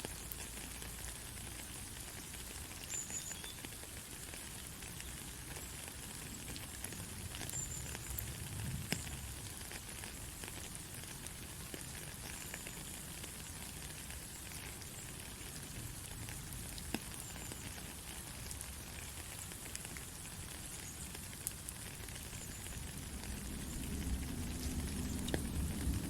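Steady rain falling, an even hiss with scattered individual drops ticking. A low rumble builds up near the end.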